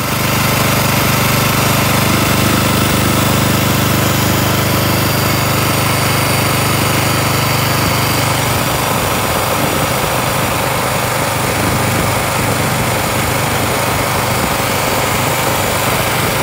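Predator 212 single-cylinder small engine running steadily during its break-in. Its even low hum turns rougher and less regular about halfway through.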